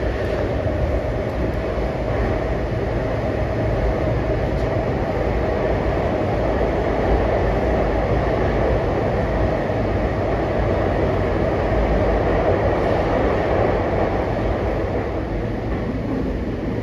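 Running noise inside a passenger car of a JR East E233 series 7000 electric train at speed: a steady rumble of wheels on rail.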